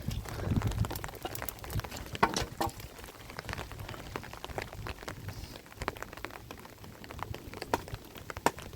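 Rain falling, with a light steady hiss and many irregular drops striking close by as sharp ticks.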